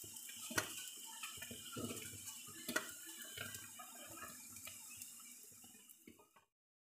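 Frothy milk tea in a steel pot being stirred and ladled up and poured back, liquid splashing, with a few sharp clinks of the ladle against the pot. It dies away and stops shortly before the end.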